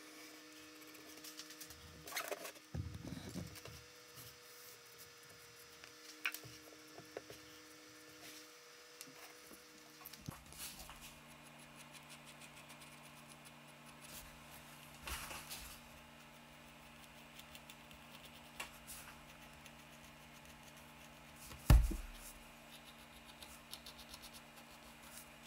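Pencil scratching on a wooden board in short intermittent strokes as a curve is drawn, with soft knocks from handling the board. One sharp thump near the end is the loudest sound.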